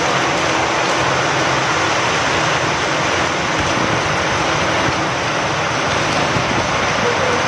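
Steady downpour of rain with wind, an even, unbroken hiss.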